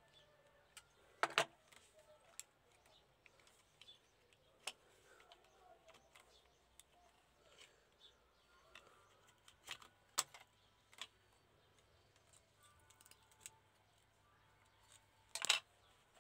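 Scattered small clicks and taps as a toy model car is taken apart by hand: plastic seats, interior and chassis parts knock against each other and the tabletop. The loudest clatter comes near the end.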